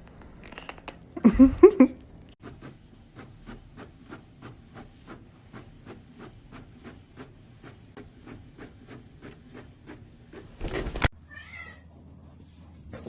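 A cat meows loudly about a second in, then a steady run of soft clicks follows, about three a second, with a short noisy burst near the end.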